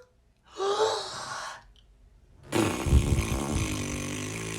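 A person's voice making non-word sounds: a short breathy, rising-and-falling vocal sound, then from about halfway a loud, long, rough buzzing vocal noise that keeps going.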